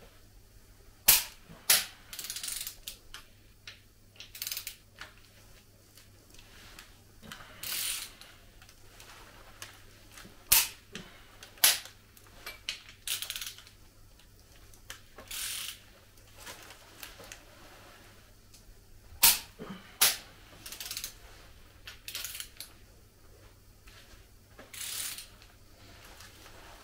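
Wrench tightening cylinder head bolts on a diesel engine block: loud, sharp clicks, often two close together, as a bolt reaches its set torque. Quieter ratcheting and metal clinks come between them.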